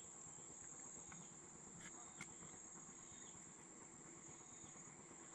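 Near silence: a faint, steady, high-pitched drone of insects, with two faint clicks about two seconds in.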